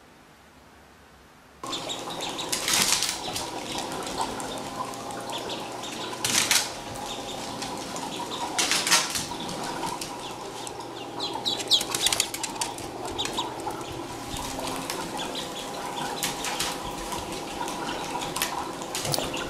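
A small bird flapping its wings in several short bursts of fluttering, over a steady hum.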